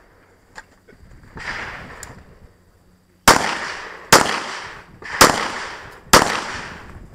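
Four handgun shots about a second apart, each with a ringing echo tail, fired from behind barrel cover on an IDPA stage. A softer, fading noise comes about a second and a half in, before the first shot.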